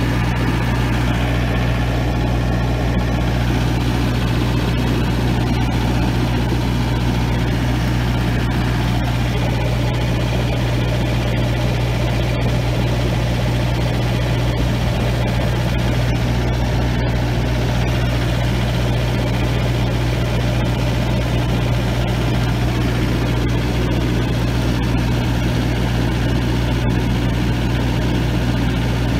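Engine-driven welding machine on a pickup bed running steadily with a low, even hum while it supplies a welding arc of about 170 amps DC.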